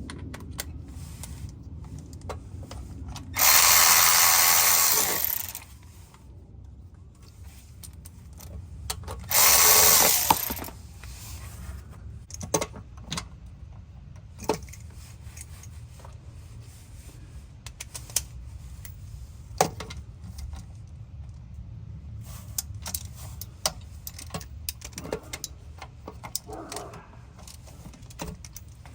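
A power tool runs in two bursts, about two seconds and then about a second long, backing out a bolt under the car; after that come scattered small metallic clicks and taps as the bolt and tools are handled.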